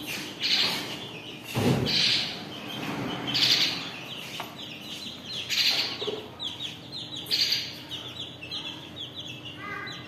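Young chicks peeping: loud, shrill peeps every second or two, with quicker, softer chirps in between. A single thump sounds about one and a half seconds in.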